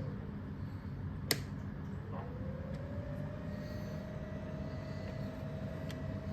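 O scale model train locomotive motor whining over a low rumble: the whine drops away at the start, then climbs back up and holds steady as power returns, while the transformer is signalling a short on the layout. A sharp click about a second in.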